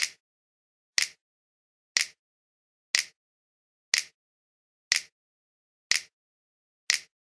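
Sharp, dry ticks, evenly spaced about once a second, with dead silence between them, like a clock or metronome ticking.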